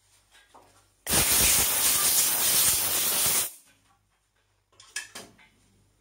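A loud, steady hiss of pressurised spray lasting about two and a half seconds, cutting in and out abruptly. A couple of light knocks follow near the end.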